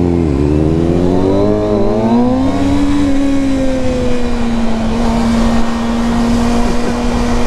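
Kawasaki ZX-6R sport bike's inline-four engine accelerating, its pitch climbing for about two seconds, then holding a steady speed for the rest, with wind noise on the microphone.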